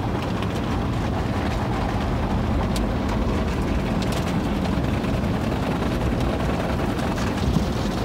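Automatic car wash heard from inside the car's cabin: a steady rumble of water spray and the wash machinery as cloth brushes sweep over the car, with a few faint taps about three and four seconds in.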